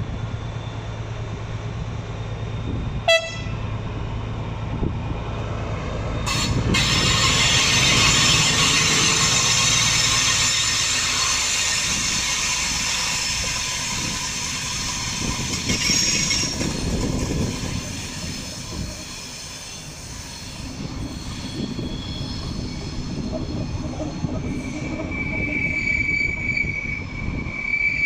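DB class 218 diesel-hydraulic locomotive and n-coaches running into a station, with a low engine hum and a short sharp sound about three seconds in. From about six seconds the train's brakes squeal in many high tones at once for about ten seconds, and near the end a single steady high squeal returns as the train slows.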